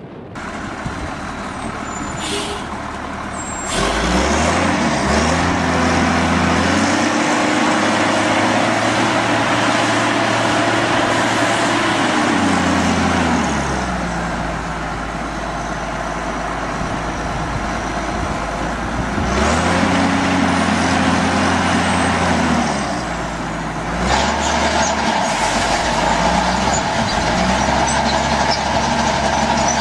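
Heavy machine's engine revving up and holding, then dropping back, over and over. There is a short hiss about two seconds in.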